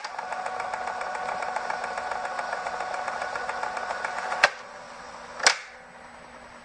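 Logo-intro sound effects: a rapid, fine ticking whir for about four and a half seconds, cut off by a sharp hit, then a short whoosh about a second later.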